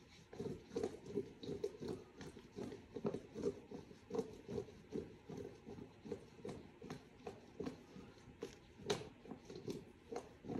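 Cut potato pieces coated in olive oil tossed in a large stainless steel mixing bowl: quick repeated wet swishes and knocks as the pieces tumble against the steel, about three or four a second, with a few sharper clicks.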